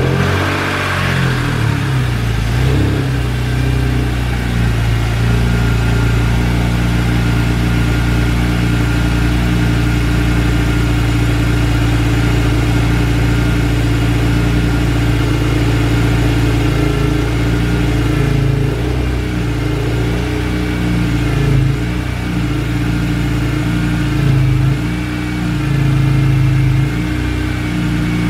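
BMW E46 M3's S54 inline-six idling just after a start, drawing through a large open 9-inch cone filter and velocity stack. The pitch wavers for the first couple of seconds, then settles into a steady idle with a few short swells in level near the end.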